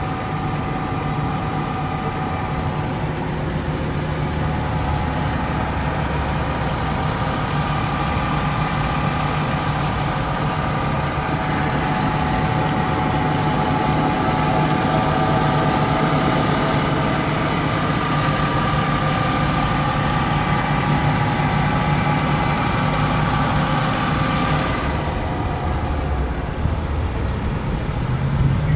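BMW E46 320's two-litre inline-six engine idling steadily.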